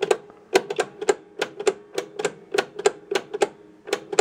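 Electromechanical match unit of a 1967 Williams Magic City pinball machine clicking as its ratchet is stepped round position by position, about three sharp clicks a second, some doubled, each with a brief metallic ring.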